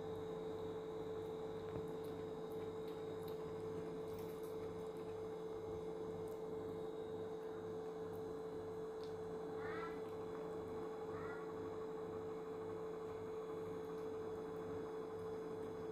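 Steady electrical hum with a low throb about twice a second, and two short, faint rising cat mews a little past halfway, a second and a half apart.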